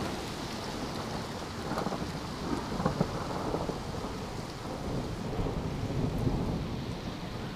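Very hard rain mixed with hail pelting down: a dense, steady rush with scattered sharper hits.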